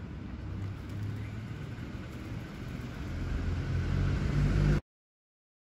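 Street ambience with a motor vehicle's low engine rumble that grows louder toward the end, as if it is passing close by. The sound then cuts off suddenly.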